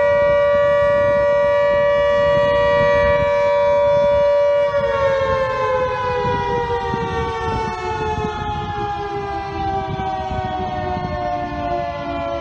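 Fire station callout siren sounding a steady multi-note tone, then about five seconds in starting to wind down, its pitch sliding slowly lower and its level dropping a little.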